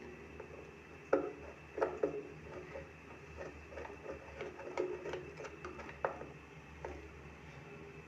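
Light clicks and taps, a dozen or so at irregular intervals, as a needle plate and its screws are handled and seated on the bed of a hand sewing machine during a needle plate fitting.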